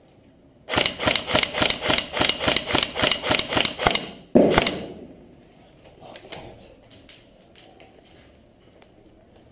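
Airsoft gun firing a rapid string of about seventeen shots, roughly five a second, then a single heavier thump just after, followed by a few faint clicks.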